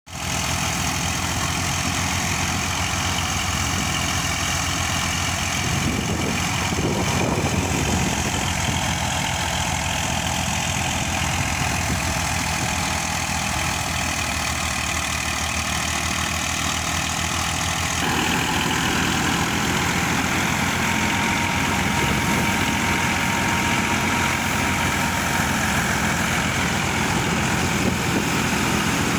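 Massey Ferguson 240 tractor's three-cylinder diesel engine running steadily under load, powering a belt-driven thresher as it is fed straw, with the thresher's whir and rattle over the engine. About 18 seconds in, the sound grows fuller and brighter.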